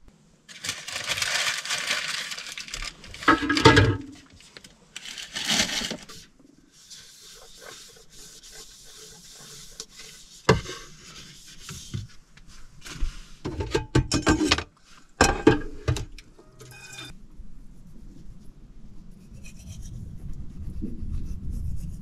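Paper rubbing and wiping over a wooden plate in several rough strokes, then fainter scraping broken by a few sharp knocks of dishes being handled.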